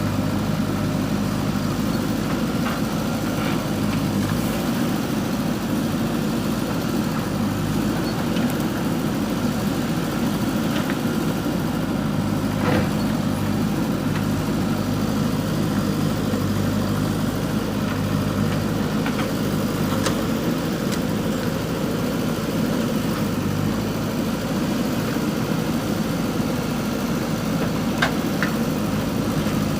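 JCB 3DX backhoe loader's diesel engine running steadily, with a couple of short sharp knocks, one about halfway through and one near the end.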